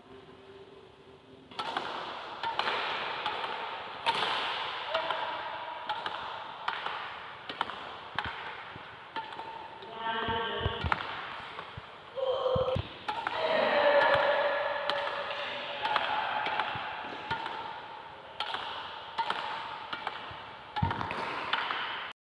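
Badminton wall volley: a shuttlecock hit again and again with a racket against a wall, a run of sharp pats about one a second that echo in a large hall, starting about a second and a half in.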